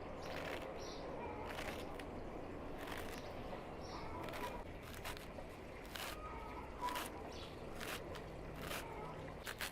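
Quiet outdoor ambience: faint bird chirps and brief calls now and then, scattered light clicks, and a low steady hum underneath.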